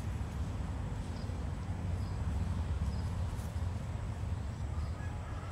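Wind buffeting the microphone outdoors: an unsteady low rumble, with a few faint high ticks.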